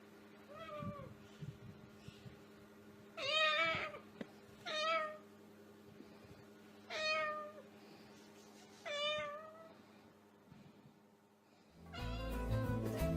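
A cat meowing five times, each call about half a second long and bending in pitch, the first one faint. Music starts near the end.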